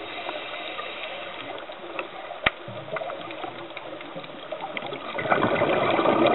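Underwater ambience with a constant crackle of small clicks and one sharp click about two and a half seconds in. From about five seconds a louder bubbling rush sets in: a scuba diver's exhaled regulator bubbles.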